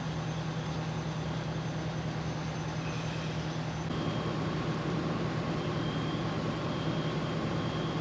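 Fire trucks' diesel engines running steadily at the scene, a deep continuous hum under a wash of noise; the hum shifts slightly about four seconds in.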